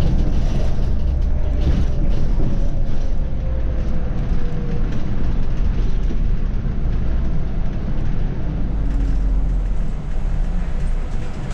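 Scania OmniCity city bus under way, heard from the driver's seat: steady low engine rumble and road noise. A faint whine falls slowly in pitch over the first few seconds, and the noise eases slightly near the end.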